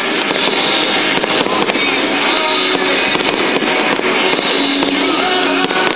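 Aerial fireworks shells bursting in the sky, a run of many sharp pops and crackles at irregular intervals, over loud rock music.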